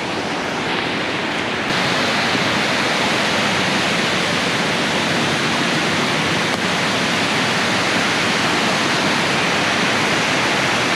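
Steady rush of a rocky gorge river and its cascades, growing louder a couple of seconds in.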